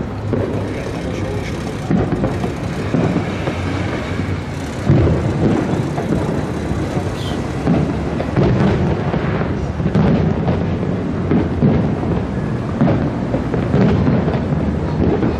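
Aerial fireworks shells bursting in quick succession: a run of deep booms that roll into one another, the loudest about five seconds in.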